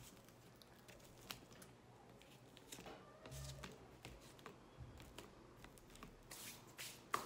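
Faint taps and rustles of fingers pressing a glued cardboard frame down onto a cardboard sheet, with one sharper click near the end.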